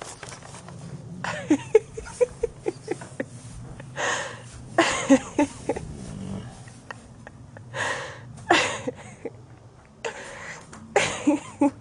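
Horse snoring in its sleep: about six rasping breaths a few seconds apart, with short low grunts between them.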